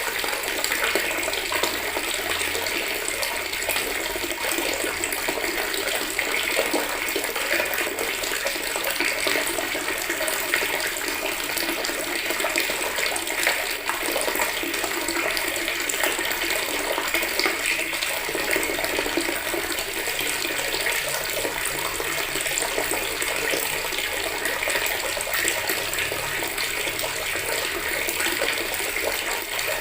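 Water running steadily from a tap into a bucket, an even splashing rush that holds without a break.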